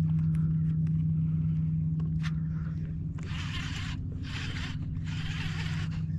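A fishing reel being cranked in short rasping spurts, about one a second from halfway through, as a lure is worked back; a steady low hum runs underneath.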